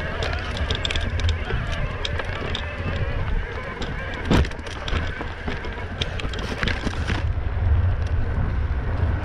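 Mountain bike riding over a rocky trail: wind rumbling on the camera microphone, with tyres crunching on loose stones and the bike rattling and clicking, and one sharp knock about four seconds in. About seven seconds in the clatter stops and gives way to smoother rolling on pavement.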